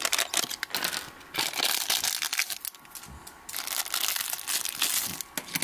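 Clear plastic packaging crinkling and crackling irregularly as hands in nitrile gloves open and handle it, with a brief lull about three seconds in.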